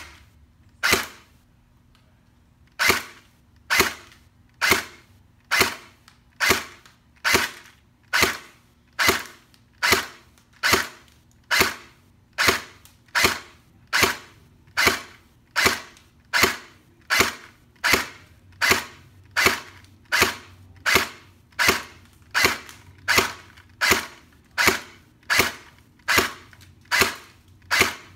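CYMA SVU airsoft rifle firing single shots in a steady series, each a sharp crack with a short tail, through a chronograph on its muzzle. The shots come roughly once a second, with one two-second pause after the first shot.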